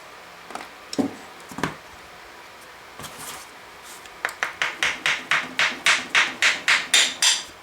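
Hand tools working on a small carburetor: a few separate knocks, then a quick, even run of about fourteen sharp tapping or scraping strokes, some four a second, that stops near the end.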